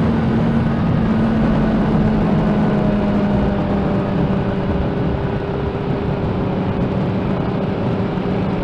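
Motorcycle engine running at a steady cruising speed, heard with heavy wind rush on the bike-mounted microphone. The engine note dips slightly about two seconds in.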